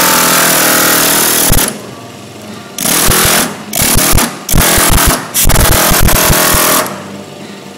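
Pneumatic air hammer driving a round-ended chasing tool into bronze sheet, hammering rapidly in repoussé work. It runs steadily, stops a little under two seconds in, then fires in four short bursts of about a second each before stopping near the end.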